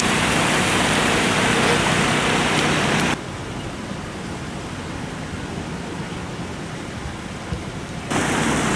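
Steady rushing of river water spilling over a concrete step. About three seconds in it drops sharply to a quieter steady hiss, and the loud rush returns near the end.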